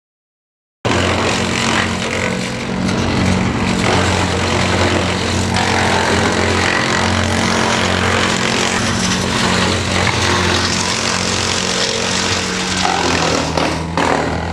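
A large engine running steadily at high revs under a rough, noisy rush. It starts abruptly about a second in, and its pitch drops slightly near the end.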